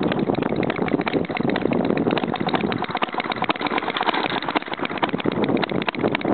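RMC Type B model hit-and-miss gas engine running fast, giving a rapid, even train of small popping beats.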